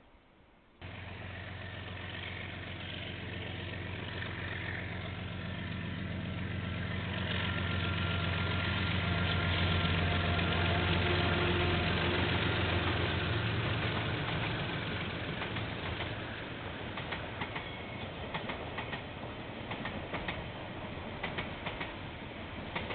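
Diesel-hauled train passing: the locomotive's engine comes in suddenly about a second in, swells to its loudest about halfway, then fades. In the second half, the wagons' wheels click over the rail joints.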